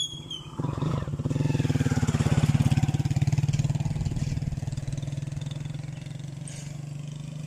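A motorcycle passing close by: its engine's rapid firing swells to a peak about two seconds in, then slowly fades away.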